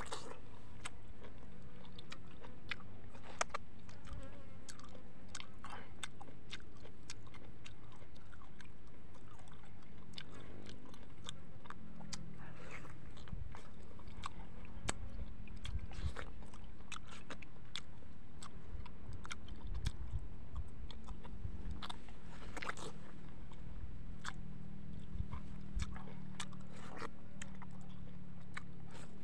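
Close-up mouth sounds of a man biting into and chewing a ripe yellow mango, with many short, sharp wet clicks scattered irregularly throughout, over a steady low hum.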